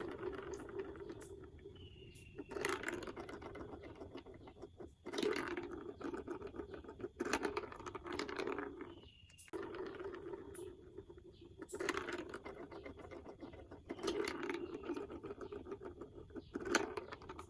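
Marbles rolling down a plastic building-block marble run: a steady rolling rumble that keeps breaking off and starting again, with small rapid clicks and sharp clatters every second or two as the marbles drop and knock through the pieces.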